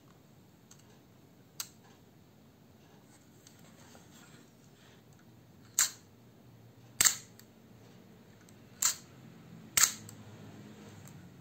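Compur leaf shutter on an ICA Ideal 246 folding plate camera being worked: one faint click, then four sharp metallic clicks one to two seconds apart in the second half.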